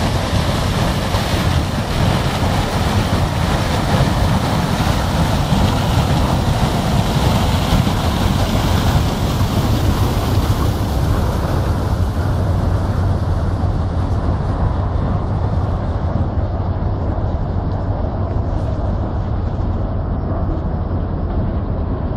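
Ice-class container ship Talnakh passing close through river ice: a steady low drone from the ship under way, with a dense rushing, crunching noise of broken ice pushed along its hull. The upper hiss softens about halfway through.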